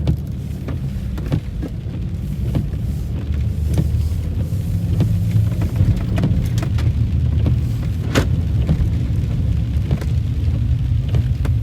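Jeep's engine and drivetrain rumbling low and steady, heard from inside the cabin, with scattered light clicks and knocks on top.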